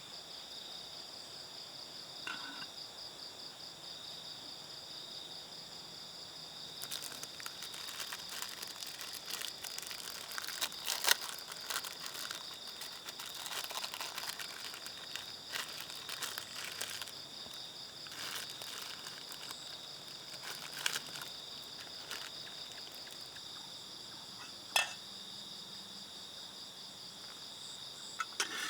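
Steady high chirring of night insects, crickets among them. In the middle stretch, something is crinkled and handled with a scatter of sharp clicks, and a few single clicks follow near the end.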